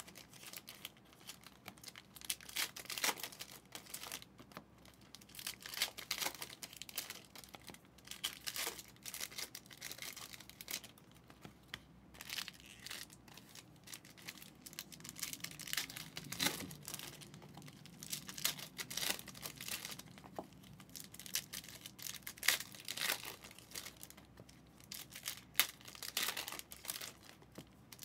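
Trading cards and foil pack wrappers being handled: irregular short crinkles, rustles and scrapes.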